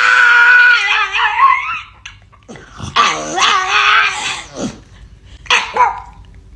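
A dog howling: one long held cry that wavers and breaks off about two seconds in, then a second wavering howl, then two short yelps near the end.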